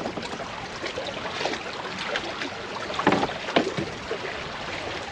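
Choppy water lapping against a kayak's hull, with wind. Two short sharp knocks stand out about three seconds in, half a second apart.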